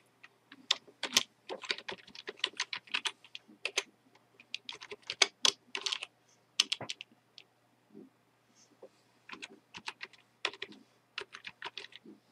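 Typing on a computer keyboard: quick runs of keystroke clicks, with a short lull about seven seconds in before the typing resumes.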